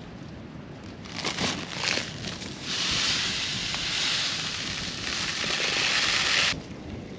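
Seed bag rustling, then a clover and chicory seed mix poured into a plastic bowl in a steady hiss for about four seconds, stopping suddenly.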